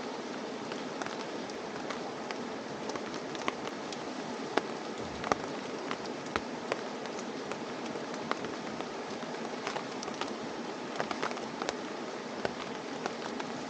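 Rain falling steadily, with single drops striking close by at uneven intervals over an even rushing noise.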